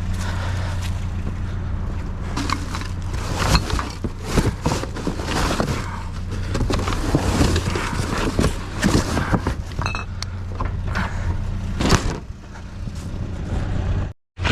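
Scrap and debris knocking and clattering as a dumpster's contents are handled, over a steady idling vehicle engine. The sound drops out suddenly for a moment near the end.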